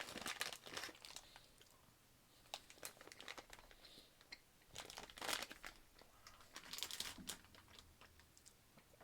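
Plastic candy wrapper crinkling and rustling as it is handled, in short scattered bursts with quiet gaps between them.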